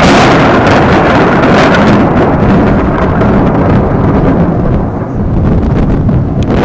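Close thunder: a loud peal that rolls on as a long, deep rumble and eases off about five seconds in.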